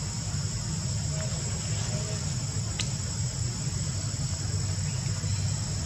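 Steady high-pitched insect chorus over a constant low rumble, with a few faint ticks and one brief chirp about three seconds in.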